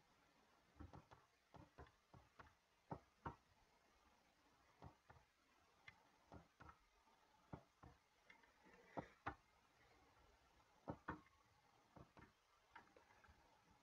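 Near silence broken by irregular, sharp clicks, one or two a second: a computer mouse being clicked repeatedly.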